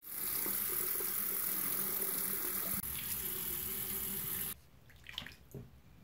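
Bathroom sink faucet running, a steady stream of water splashing into the basin, which cuts off suddenly about four and a half seconds in.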